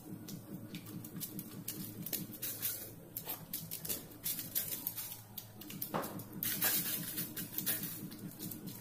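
Eating rice and curry by hand from a stainless steel plate: fingers mixing and scooping food, with many small clicks and scrapes against the plate, over a steady low hum.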